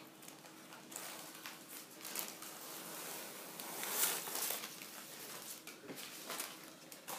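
Paper rustling and crinkling as a thin brick pastry sheet is peeled off its paper backing sheet and the paper is lifted away. The rustle is loudest about four seconds in.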